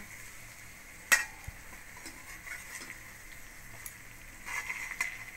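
Metal spoon stirring fried fish and onions in a steel kadai, scraping the pan over a faint sizzle of hot oil. One sharp clink of metal on the pan about a second in, and a brief stretch of scraping with another knock near the end.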